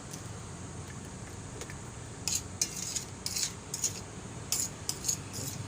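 A metal utensil clinking and scraping against a cooking pot of vegetable stew: a run of short, light clinks over the second half.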